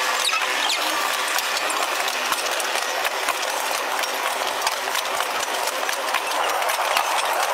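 Steady mechanical rattling and clattering, made of many quick irregular clicks over a constant noisy rumble.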